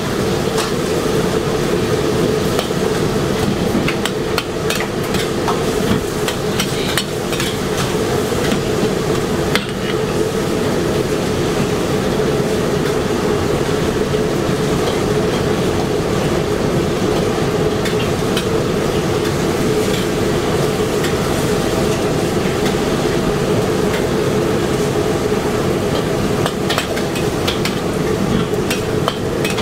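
Metal spatula scraping and clanking against a steel wok in irregular knocks while noodles are stir-fried, over a steady noise of the gas burner and frying.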